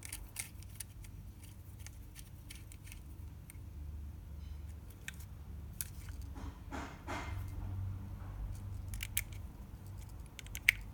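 Scattered light clicks and taps of small metal and plastic trimmer parts being handled and fitted together, over a faint low hum.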